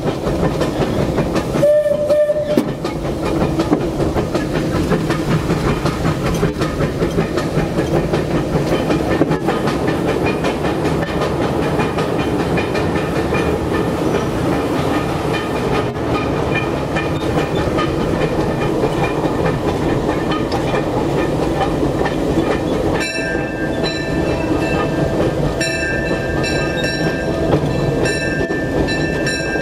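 A Disneyland Railroad steam locomotive running, heard from inside its cab as a steady rumble and clatter of engine and wheels. About three-quarters of the way through, a bell starts ringing over it, struck over and over.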